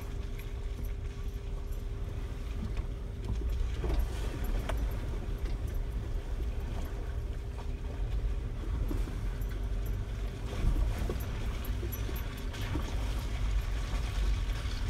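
Off-road vehicle driving slowly over a muddy, puddled dirt trail, heard from inside the cab: a steady low engine and drivetrain rumble with occasional knocks from the tires over ruts. A thin steady whine runs with it and fades out about halfway through.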